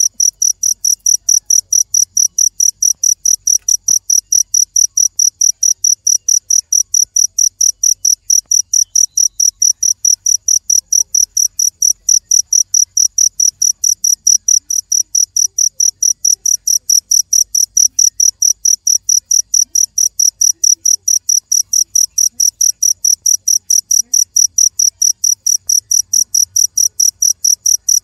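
Cricket chirping: a high-pitched chirp repeating evenly, about three times a second, without a break.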